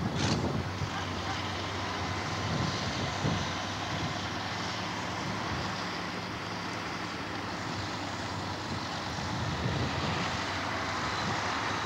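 A competition trial truck's engine running steadily in the distance, with a short bump right at the start.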